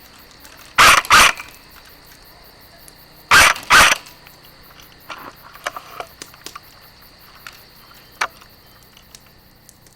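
A dog barking twice, each time a quick double bark, about two and a half seconds apart.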